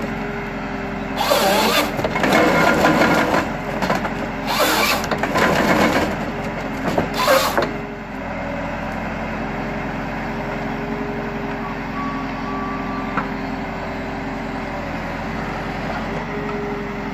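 Nisula 325H harvester head processing a felled pine stem in three loud, noisy stretches over the first eight seconds, over the steady running of the Valtra harvester tractor's engine and hydraulics. From about eight seconds in, only the engine's steady running is left.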